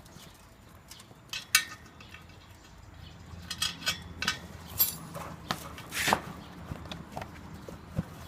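Steel tyre levers clinking, knocking and scraping against a wheel rim as the tyre and tube are worked back into place: scattered sharp metallic clicks, a couple of them ringing briefly.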